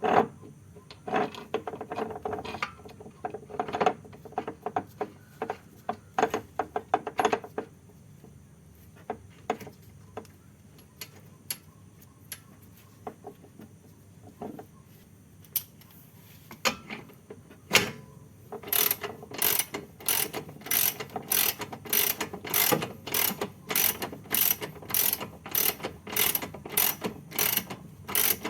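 Hand ratchet wrench clicking as it is worked on a fastener, first in scattered clicks with some knocks, then, from about two-thirds of the way through, in steady back-and-forth strokes at about two clicks a second.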